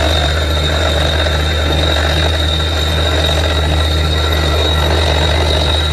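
Truck-mounted borewell drilling rig running steadily while drilling: a deep, even engine hum with a steady high whine and the hiss of compressed air blowing dust and cuttings out of the borehole.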